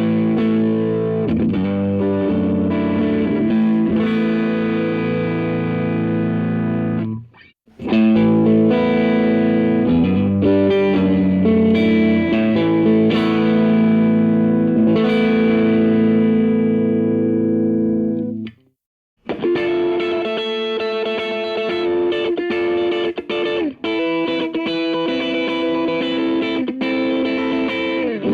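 Telecaster electric guitar played through an Orange Micro Terror amp and a 2x12 speaker cabinet. Chords ring out and are cut off briefly twice; from about two-thirds in, the strumming turns into a choppier rhythm.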